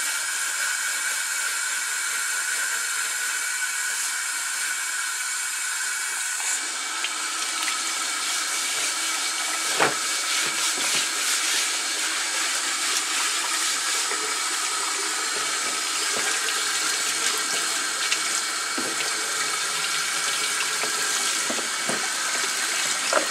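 Faucet water running into a utility sink and splashing off a wooden cutting board as it is scrubbed, the splash sound shifting about six seconds in. A sharp knock about ten seconds in, with a few lighter knocks later.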